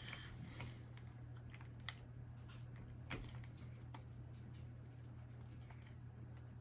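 Faint, scattered light clicks and taps of a Nikon F3 film SLR being handled while its removable viewfinder is worked loose, over a steady low hum.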